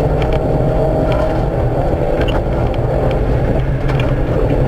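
Rally car engine running hard at a steady pitch, heard from inside the car, over gravel road noise with a few short knocks.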